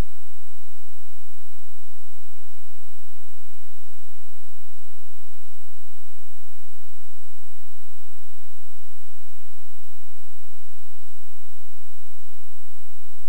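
Steady electrical hum and hiss from the sound system: several constant tones and a thin high whine that do not change, with no voice.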